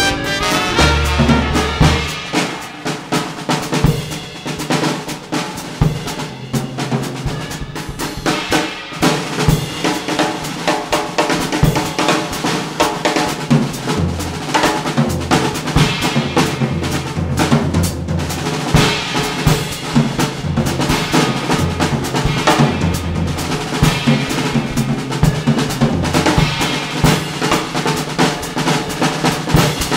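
Background music with a prominent drum kit, snare and bass drum keeping a steady beat under bass notes.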